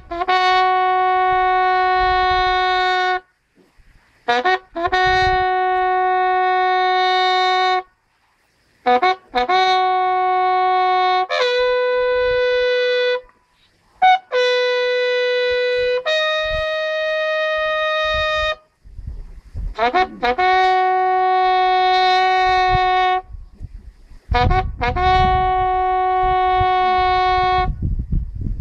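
Bugle sounding a slow funeral call: long held notes on three pitches, each phrase opened by quick rising notes, with short pauses between phrases.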